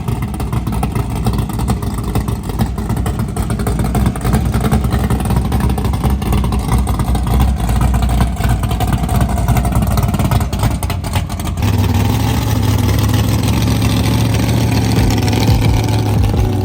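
A car engine running loud and steady, with an abrupt change about two-thirds of the way through to a steadier, lower hum.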